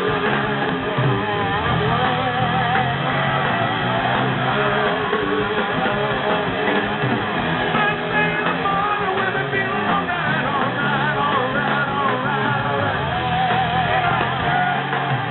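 Live rock band playing loud and steady: electric guitar, bass and drums, with singing over it.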